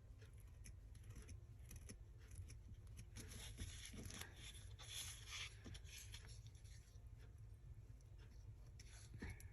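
Faint snipping of scissors cutting through paper, with a denser run of cuts and rustling about three to six seconds in.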